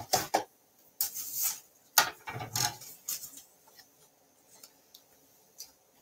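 Desk handling noises as cardstock and a thin metal cutting die are shifted into position: a few sharp taps and short rustles in the first half, then quiet handling.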